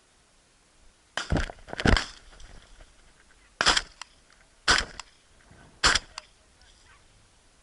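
Five gunshots, typical of shotguns on a hare hunt: two close together a little over a second in, then three more about a second apart.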